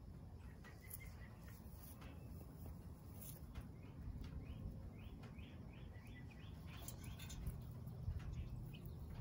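Young chicks peeping softly, with scattered short chirps and a run of quick rising chirps, a few a second, in the middle, over a low steady rumble.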